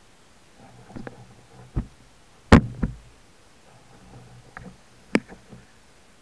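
Underwater sound heard through a speargun-mounted camera: a low, uneven murmur of water moving past as the diver glides, broken by a handful of sharp clicks and knocks, the loudest about two and a half seconds in.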